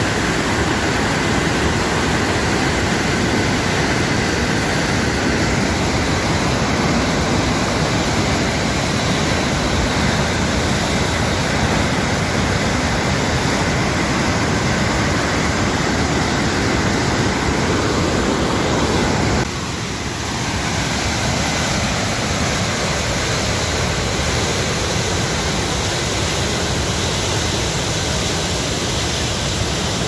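Loud, steady rush of river whitewater pouring through dam gates. A little past halfway it drops slightly in level and changes character, as at a cut to another stretch of rapids.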